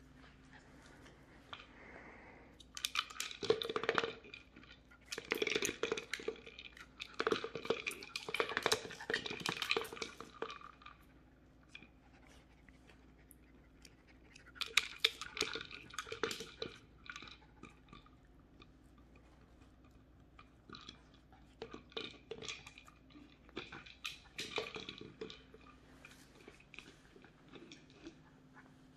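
Bichon Frise puppies crunching and chewing dry treats, in several bursts of crunching and clicking with quiet gaps between, the longest in the first ten seconds.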